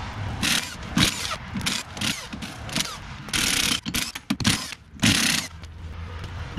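Cordless impact wrench running lug nuts off a Bobcat S185 skid-steer wheel hub, in a string of short bursts with a longer run about halfway and another near the end.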